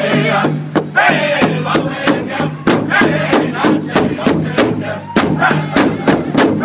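Powwow drum group singing together while striking a large shared powwow drum in unison with padded sticks, a steady beat of about three strokes a second under the voices.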